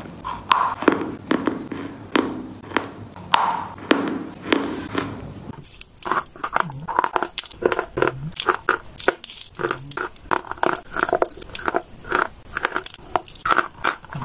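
Chalk being bitten and chewed close to the microphone. First come separate crunching bites about once a second, then from about six seconds in a denser run of crisp, sharp crunches and snaps.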